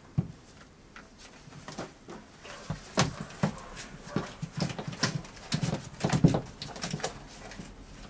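Knocks, scrapes and rustling inside a wooden barn owl box as it is reached into, with one sharp knock at the very start and a busy run of short knocks between about three and seven seconds in.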